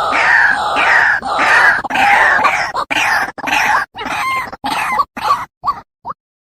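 White-breasted waterhen (ruak-ruak) calling: a lure recording of harsh repeated notes, about two a second. From about halfway through, the calls break into short, clipped pieces with silent gaps between them, and they nearly stop near the end.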